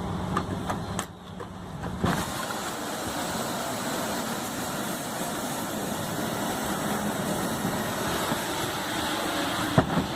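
Steady rushing aircraft engine noise that grows slowly louder, with a few faint clicks in the first couple of seconds.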